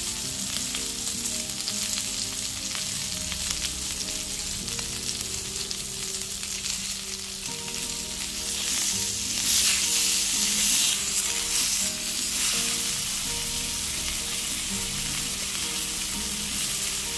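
Sirloin steak sizzling as it sears in a hot pan, the sizzle swelling louder for a couple of seconds about halfway through. The steak is at the end of its cooking, done.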